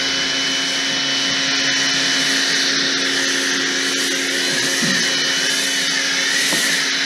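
Portland 1750 PSI electric pressure washer running steadily, its motor humming under the hiss of the foam cannon spraying.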